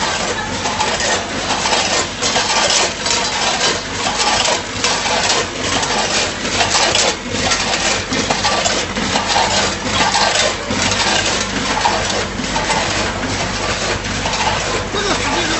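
Automatic chip packing machine running: chips rattle and clatter through the multihead weigher's hoppers and chute in repeated rushes, roughly one a second, over a steady machine hum.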